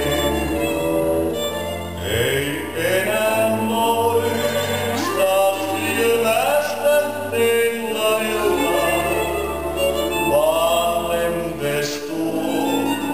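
Recorded Finnish tango music playing.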